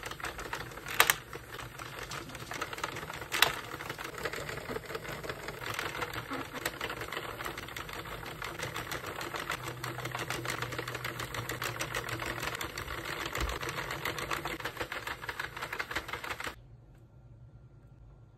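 Hand-cranked plastic circular knitting machine running, its needles clattering in a fast, steady stream of clicks, with two louder clacks about one and three and a half seconds in. The clatter stops suddenly about two seconds before the end.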